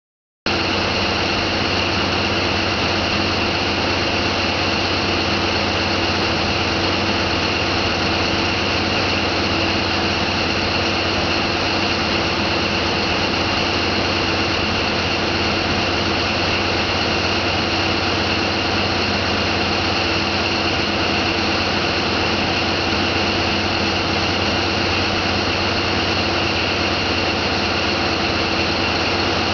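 Marine engine running steadily, heard aboard a boat under way: a constant drone with steady whining tones above it and no change in speed.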